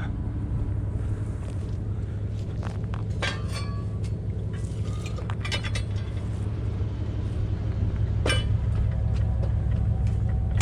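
Pickup truck engine running with a steady low rumble, with a few sharp light clinks and knocks scattered over it; the rumble grows slightly louder near the end.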